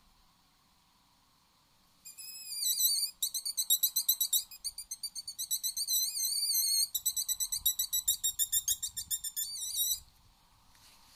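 Wolfers Harp mouth-blown fox call sounding a run of rapid, high-pitched, wavering squeals, about two seconds in and stopping abruptly near the end. The squeals mimic prey in distress to lure a fox.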